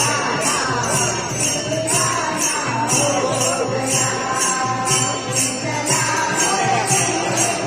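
Women singing a Hindi devotional bhajan with a melody that wavers up and down, over jingling percussion shaken in a steady beat about three times a second.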